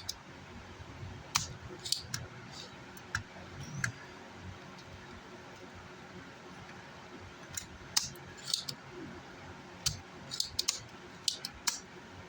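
Light metallic clicks and clinks of hand tools and small parts being handled during bench work on a car amplifier's circuit board. They come in two clusters with a lull in the middle.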